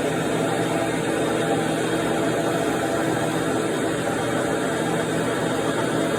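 Bandsaw running with a steady, unchanging hum.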